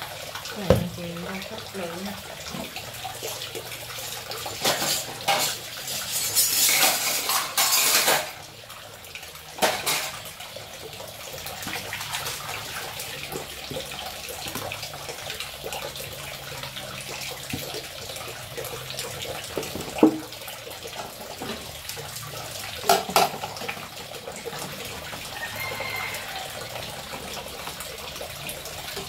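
Tap water running steadily into a sink while dishes are washed, with plates, cutlery and plastic baskets clattering. The water splashes louder for a couple of seconds about a quarter of the way through, and a few sharp clinks of dishes stand out.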